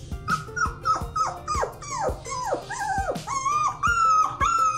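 A young puppy yipping over and over: short high-pitched calls that drop sharply in pitch, about three a second, turning into longer, steadier whining calls about three seconds in.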